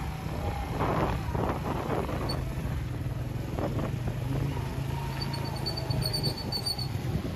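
Motorcycle engine running steadily while riding, with a rumbling rush of wind and road noise that swells in the first couple of seconds.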